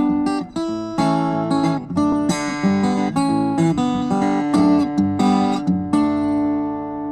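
Solo acoustic guitar playing an instrumental, a quick run of picked notes and chords, then a final chord struck about six seconds in and left to ring.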